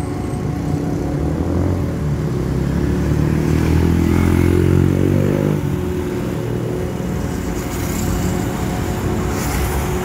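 Road traffic passing close by. Cars and a motorcycle go past, and the engine sound swells and rises in pitch about three to five seconds in, then drops back to a steady traffic rumble.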